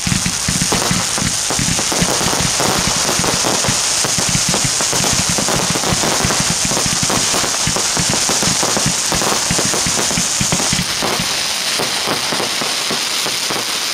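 A barrage of fireworks shooting red stars and gold-tailed effects, giving a dense, continuous crackling and popping with rapid shots. The deeper thumps of the shots drop away about three-quarters of the way through while the crackle goes on.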